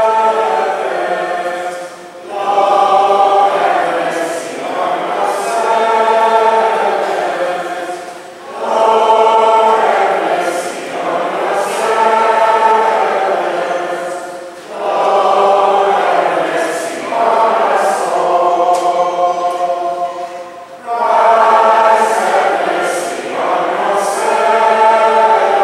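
A congregation singing together, in phrases of about six seconds with short breaks between them.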